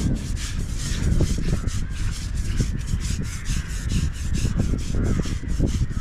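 Rhythmic scrubbing of an elephant's hide during its bath, about three or four rasping strokes a second.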